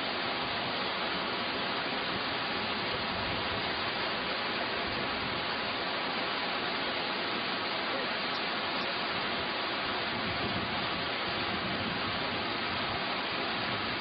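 Ouzoud Falls: the steady, unbroken rush of a large waterfall.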